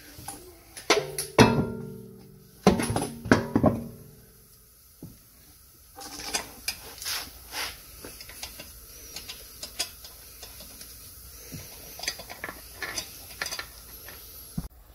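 Steel wheel bolts and an alloy wheel clinking as the wheel is hung back on the hub and the bolts are threaded in by hand. A few sharp metal knocks with a brief ring come in the first three seconds, then light scattered clicks.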